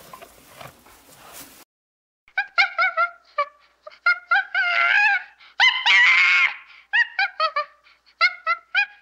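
Faint background noise that cuts off about one and a half seconds in. Then an animal gives a fast run of short, high-pitched calls, with two longer drawn-out cries in the middle.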